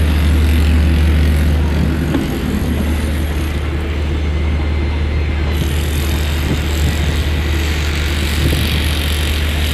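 Ship's engine running with a steady low drone.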